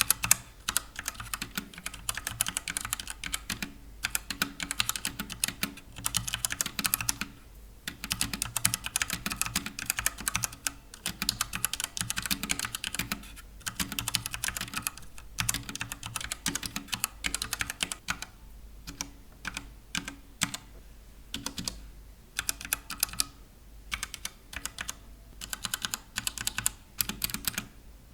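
Typing on a Redragon Dragonborn K630 mechanical keyboard with brown switches: fast runs of keystrokes broken by several short pauses.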